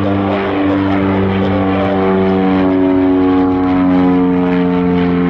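Piper PA-44 Seminole twin-engine piston aircraft climbing out under power: a loud, steady propeller and engine drone whose pitch drifts slowly as it passes.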